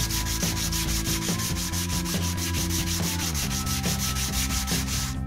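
A handheld sanding block rubbing sandpaper over the edge of a plywood piece in fast, even back-and-forth strokes.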